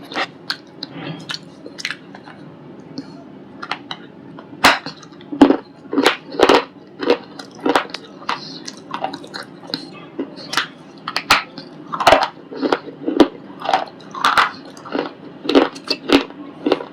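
A person biting and chewing a white ball of baked shale close to the microphone: a run of sharp, irregular crunches, sparse and light at first, coming thick and loud from about four seconds in.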